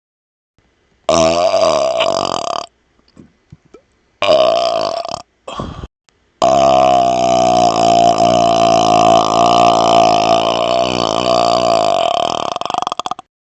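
A man burping three times: two short burps, then one long, steady burp lasting about seven seconds.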